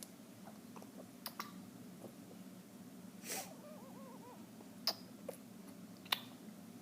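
A baby feeding on milk, with short sharp sucking clicks scattered through and, about three seconds in, a wheezy snorting breath that trails into faint squeaky little tones.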